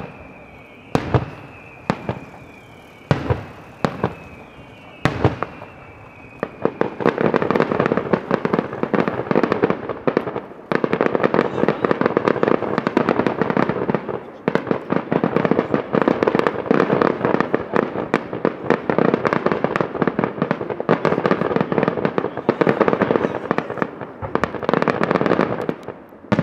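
Daytime fireworks display: single loud bangs of aerial shells about a second apart, over a high whistle that slides slowly down in pitch. After about six seconds they give way to a dense, rapid stream of bangs and crackle that keeps going to the end.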